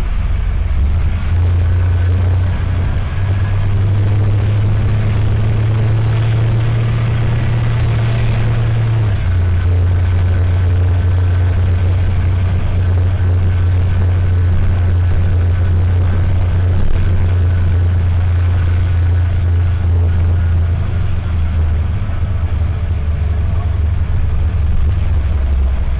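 Mercedes-Benz OM904LA diesel engine of a city bus with an Allison automatic, heard from inside the bus while driving. The engine note rises in steps over the first few seconds, falls about nine seconds in, and falls again a few seconds before the end. The whine of the air-conditioning pulley and compressor runs over the engine noise.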